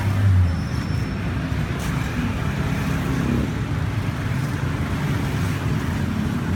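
Steady low rumble of street traffic, motor vehicles running nearby.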